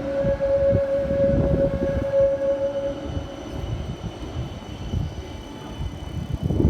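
Helsinki tram running on its rails, with a low rumble and knocks. A steady high whine stops about three seconds in.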